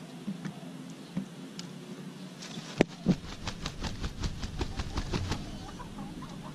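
A rooster's beak pecking rice grains off bare concrete: a few scattered taps, then a quick run of sharp taps, about five a second, starting about three seconds in and lasting some two and a half seconds, the first tap the loudest.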